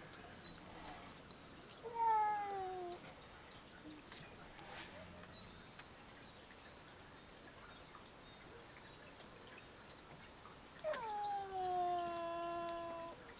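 A cat meowing twice: a short meow falling in pitch about two seconds in, and a long drawn-out yowl near the end that drops in pitch and then holds.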